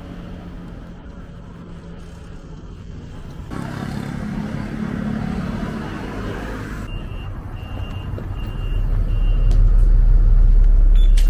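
Night street and traffic noise, then a short electronic beep repeating evenly about twice a second, under the heavy low rumble of a city bus's engine that grows loud, heard from inside the bus.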